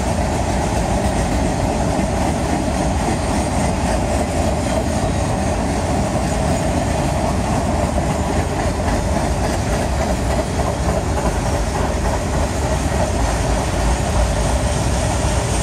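Freight cars of a long mixed manifest train rolling steadily past: tank cars, then boxcars and covered hoppers, with their steel wheels running on the rails.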